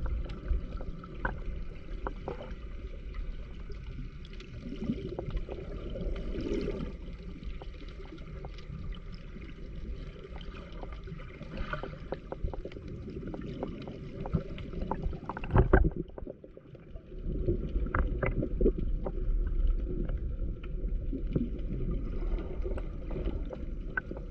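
Seawater lapping and gurgling against shore rocks, a steady wash with a low rumble and small splashy clicks. There is one sharp knock a little past halfway.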